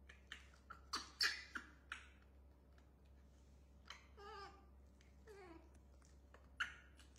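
A baby monkey giving two short falling squeaks about halfway through, after a run of sharp clicks and taps in the first two seconds.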